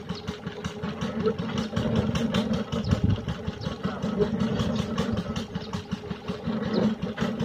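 Small stationary engine powering a tubewell drilling rig, running steadily with a fast, even pulsing beat.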